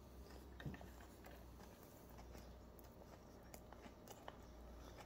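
Near silence: faint room tone with a low hum and a few soft, scattered clicks.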